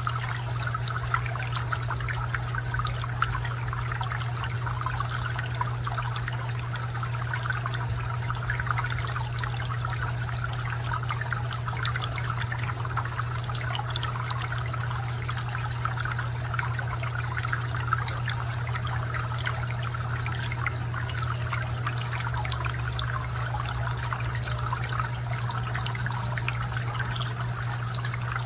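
Garden fountain water trickling and splashing steadily, over a steady low hum.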